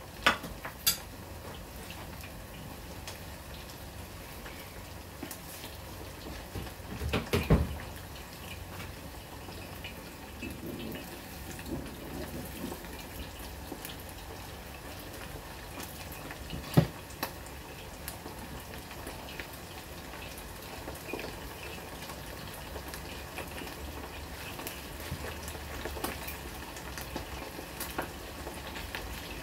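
Pork ribs bubbling steadily in a stainless-steel saucepan on the stove. A few sharp knocks break in: two right at the start, a loud cluster about seven seconds in, and one at about seventeen seconds.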